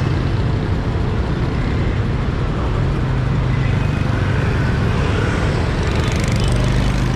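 Steady road traffic: scooters and cars running together as one continuous engine hum and tyre noise, heard from a moving motorbike in the flow. There is a little extra hiss about six seconds in.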